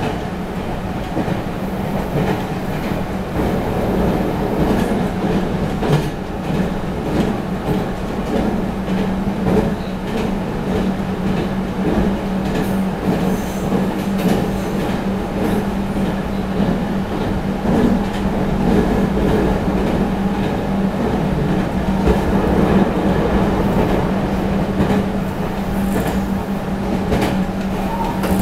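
Running noise inside a Meitetsu 3700 series electric commuter train car at about 75 km/h. It is a steady hum and rumble from the wheels and running gear, with occasional short clicks.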